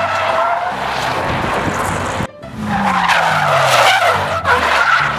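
Drift car sliding with its tyres screeching and its engine running. After a short break a little past halfway, the engine note falls steadily as the revs drop.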